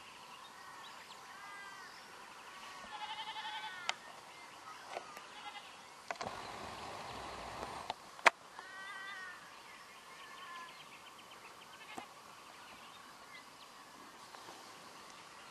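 Herd of feral goats bleating, several short calls spread through, with a rush of noise for about two seconds near the middle and a single sharp click just after it.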